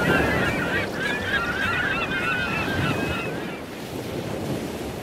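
Many birds calling in short, warbling cries over a steady wash of surf, the whole sound slowly fading out.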